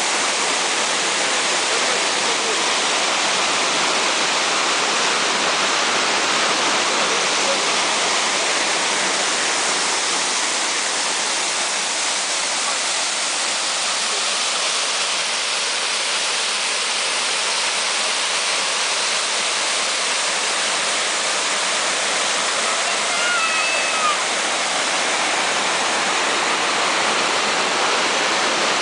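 Waterfall rushing, a loud, even roar of falling water. A few faint high chirps come through about three-quarters of the way in.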